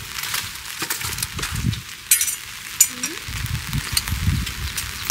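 Food sizzling in a hot pan, with sharp clicks and clinks of utensils and a few muffled low knocks.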